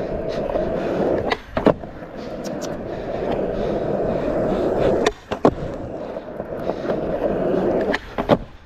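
Skateboard wheels rolling on pavement with a steady rumble, broken three times by the sharp clack of the board popping and landing during pop shove-it attempts.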